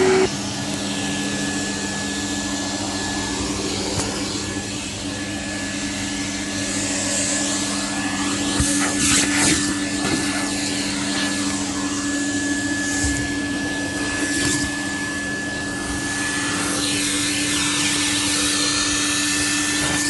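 Numatic canister vacuum cleaner's motor running with a steady hum, with a few brief rattles and rustles near the middle.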